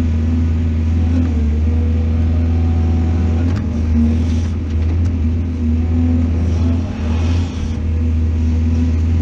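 Heavy diesel engine of earthmoving machinery running steadily with a low hum. Short bursts of higher hissy rattle come about four seconds in and again around seven seconds.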